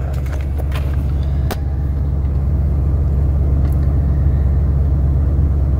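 A 1999 Chevy Silverado 1500's engine idling with its factory muffler removed, heard from inside the cab as a steady low drone. It is running at a high idle, and the owner says it has a large exhaust leak at the manifold.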